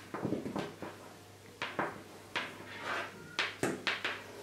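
Handling a climbing rope on a table: a series of short, irregular rustles and scrapes as the rope is wrapped, pulled through the hands and slides over the tabletop while a stopper knot is tied.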